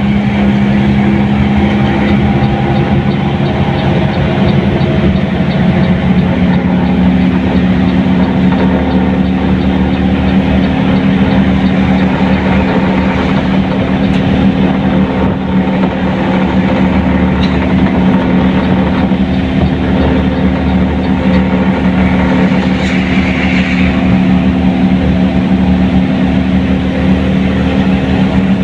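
Mercedes-Benz 1623 front-engined bus running on the road: a steady engine drone over dense road noise, its note shifting slightly about six seconds in.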